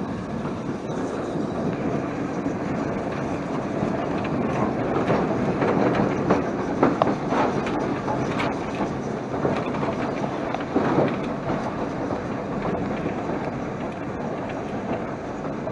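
BR Standard 9F steam locomotive on the move, heard from its footplate: a steady rumble of the wheels running on the rails, with irregular clicks and knocks.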